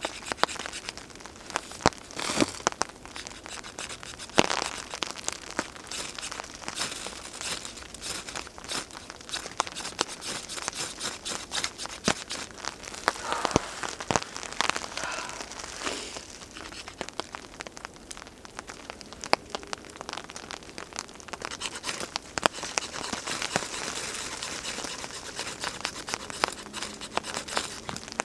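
Hands crinkling, tearing and breaking up tinder and kindling to start a fire in wet conditions, with many small sharp crackles and snaps throughout.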